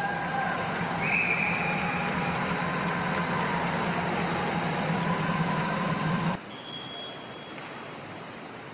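Steady hum and hiss of background ambience with a few faint held tones, cutting off suddenly about six seconds in to a quieter hiss.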